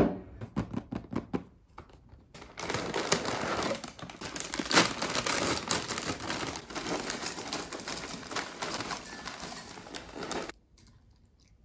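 Crinkling of a plastic cereal bag being opened and handled, then cereal poured from it into a ceramic cup, after a few light knocks as the cup is set on the table. The crinkling stops abruptly near the end.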